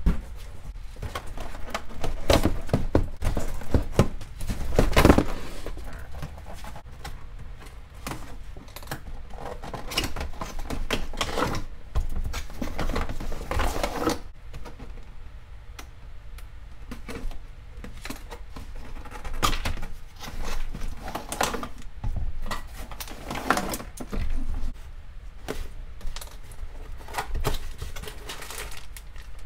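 Unboxing handling noise: cardboard boxes opened and slid, and parts lifted out and set down on a table, with scattered knocks, taps and scraping.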